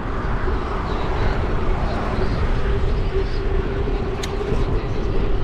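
Wind rumbling on a GoPro's microphone while cycling, with a steady mid-pitched hum and a single sharp click about four seconds in.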